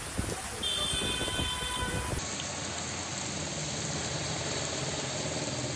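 Heavy rain pouring onto a city street with traffic passing through the water, a rushing, rumbling noise. About two seconds in it changes abruptly to a steadier, even hiss of rain.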